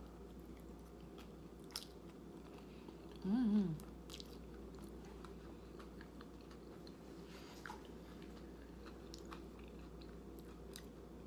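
A person chewing and crunching a mouthful of chips and taco dip, with scattered soft mouth clicks and a short hummed "mm" about three seconds in.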